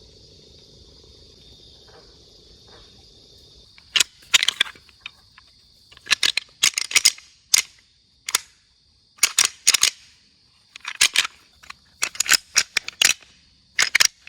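Deer-hunting rattle bag worked in rough bursts of sharp clacking from about four seconds in, its rods grinding and knocking together to imitate bucks sparring antlers. Crickets chirp steadily underneath.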